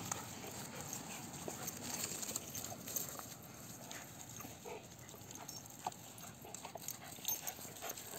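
Dogs playing and scuffling on grass, faint, with a few brief whines and scattered small scuffling clicks over a low outdoor hiss.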